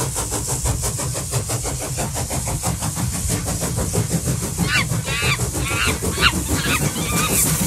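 Steam locomotive chuffing in a steady fast rhythm over a low rumble and hiss, the train under way. From a little past the middle a repeating higher sound joins in, about twice a second.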